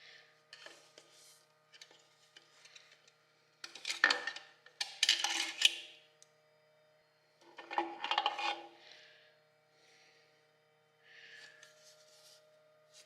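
Metal parts clinking and scraping as TH400 clutch discs and steel plates are slid out of the clutch drum and set down. There are several separate clusters of clatter with a light metallic ring, the loudest a few seconds in and again near the middle.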